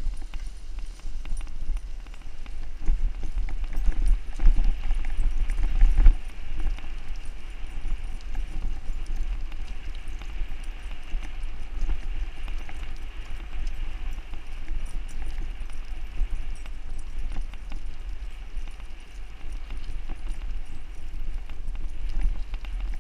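Two huskies running in harness, their footfalls rapid and rhythmic on a packed dirt trail, as they pull a bike whose tyres roll and rattle over the ground. A strong low rumble of wind buffets the handlebar microphone throughout.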